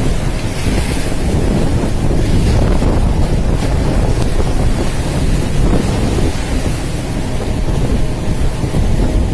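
Strong wind buffeting the microphone over the steady rush of big sea waves against a ship at sea, with a faint steady hum underneath.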